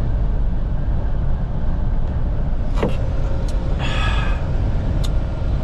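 Steady low rumble of a semi-truck's engine and road noise heard inside the cab while driving. A few brief clicks and a short burst of sound about four seconds in.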